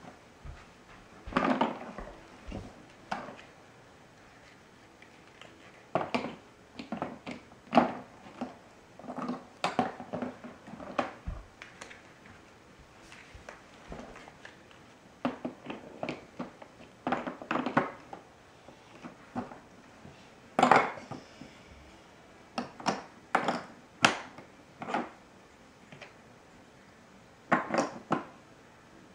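Large plastic Mega Bloks building blocks clattering and knocking against one another and the plastic table top as they are picked up and placed, in irregular clusters of clicks and knocks with short pauses between.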